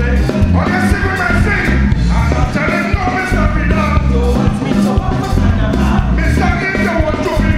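Live band playing an upbeat soca song: horns over a steady dance beat, with singing.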